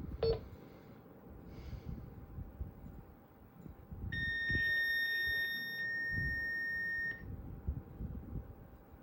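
A single steady, high electronic beep tone lasting about three seconds, starting about four seconds in. A short click comes just after the start.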